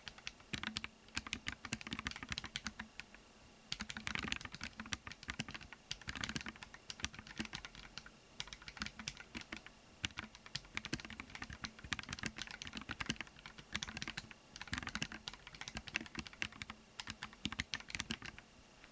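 Kinoya Mokulate keyboard being typed on: quick runs of keystroke clicks, broken by brief pauses, stopping near the end.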